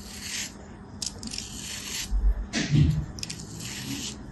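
Craft-knife blade scraping and slicing through kinetic sand in several separate strokes, with grains crumbling off. A louder dull thump comes a little after halfway.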